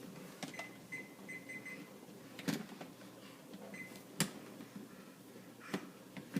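A few light knocks and clicks in a quiet room, with a short run of faint high electronic beeps about a second in and another single beep later.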